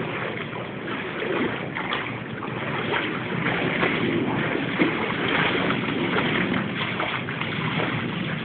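Tigers wading and tussling in a shallow pool, water splashing and sloshing around them in scattered splashes over a steady rushing noise.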